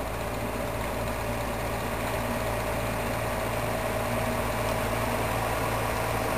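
Large mobile crane's engine running steadily as it holds and moves a suspended steel cofferdam panel: an even hum with a faint steady tone above it.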